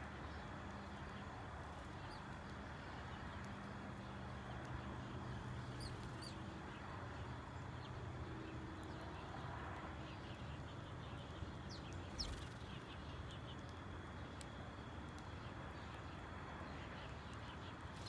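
Faint chirping of sparrows now and then over a steady background hiss. A short sharp sound comes about twelve seconds in.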